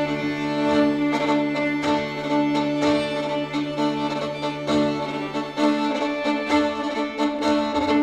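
String ensemble of violins, viola and cello playing an arrangement of Persian traditional music: a bowed violin melody over a held low note that stops near the end.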